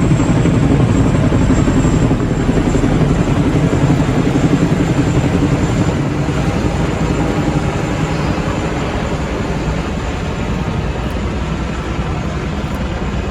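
Helicopter flying past, its rotor and engine a loud low rumble that slowly fades as it moves away.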